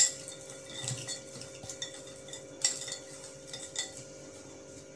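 Chopped nuts and dried fruit being stirred together in a bowl, with irregular clicks and scrapes of the pieces and hand against the bowl, a few louder clicks spaced about a second apart.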